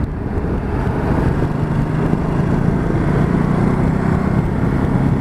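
Ducati Multistrada 1260 S's V-twin engine pulling as the bike accelerates, getting gradually louder, under a steady rush of wind and road noise.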